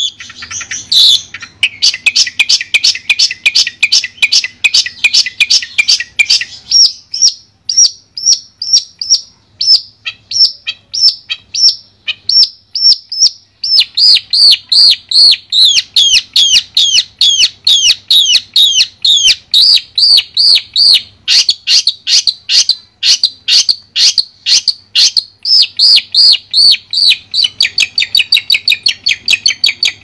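Long-tailed shrike (cendet) singing: fast, dense chattering for the first few seconds, then a string of separate sharp notes, then from about halfway a rapid run of repeated down-slurred notes, several a second.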